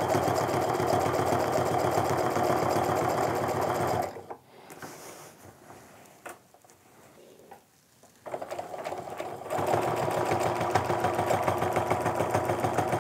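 Domestic sewing machine fitted with a ruler foot, stitching steadily through a quilt sandwich for ruler-work quilting. It stops about four seconds in and starts stitching again about eight seconds in.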